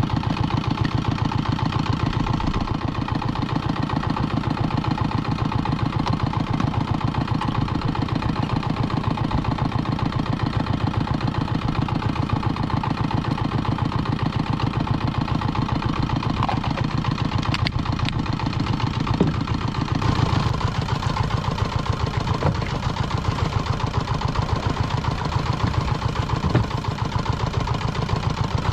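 A small fishing boat's engine idling with a steady, fast pulse, with a few short knocks and clatters partway through.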